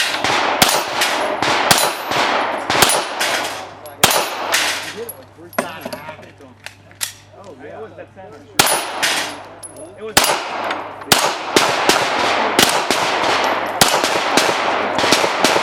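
Rapid pistol shots fired at steel plates, some hits ringing off the steel. About a dozen quick shots come first, then a pause of about four seconds, then a steady string of about two shots a second.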